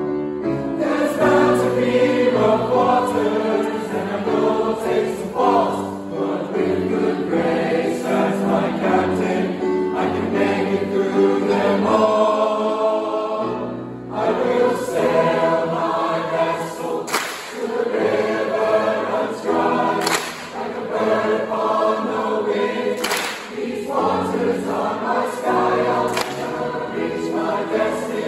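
Large mixed choir of boys and girls singing together, with a brief break in the sound about halfway through.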